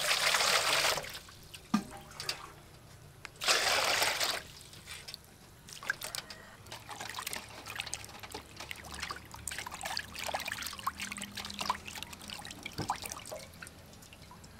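Water poured from a jug into a metal basin in two pours of about a second each, the second about three seconds after the first. Then hands knead and squeeze a slab of raw beef in the water, with many small splashes and wet squelches.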